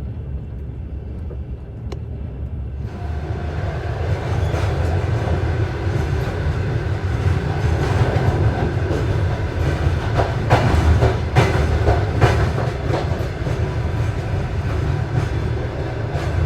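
Passenger train running on rails: a steady low rumble of the cars, with the clatter of wheels over rail joints. It grows louder and fuller from about three seconds in, with a run of sharp clacks in the middle.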